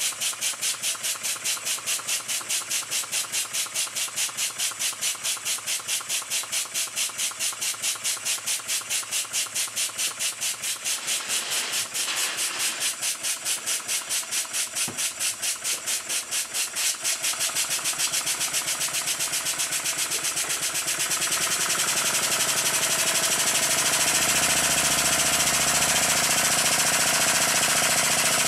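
Circa-1896 model single-cylinder horizontal steam engine running smoothly with its adjustable bearings freshly tightened. Its exhaust beats about three or four times a second, quicken through the second half, and merge into a continuous rushing hiss near the end as the engine speeds up.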